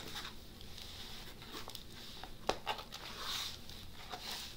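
Paper rustling and crinkling as a rolled diamond painting canvas is unrolled from its paper wrapping by hand, with small clicks throughout and one sharp tap a little past halfway.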